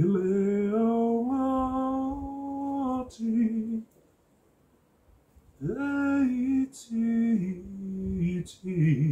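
A man singing a slow tune unaccompanied, in two phrases of long, held notes with a pause between them. A few short scrapes of a spoon on pumpkin skin come between the notes.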